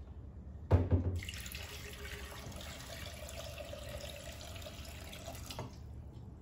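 A knock about a second in, then a kitchen tap running steadily for about four and a half seconds before it is shut off.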